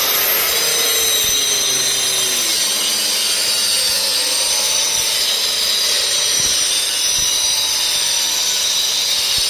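A power tool running at a steady speed, with a high whine over a loud hiss.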